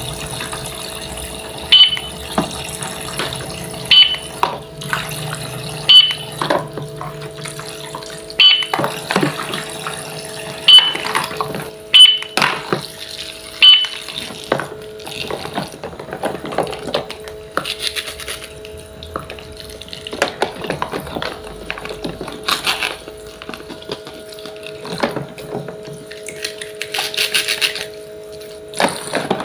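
Sharp taps and knocks, several with a short high ring, about every two seconds at first, then a busier stretch of softer knocks and handling noise, over a steady hum.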